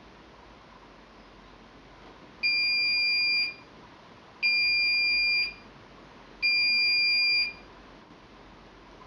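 Washing machine's end-of-cycle signal: three steady, high-pitched beeps, each about a second long and two seconds apart, meaning the programme has finished.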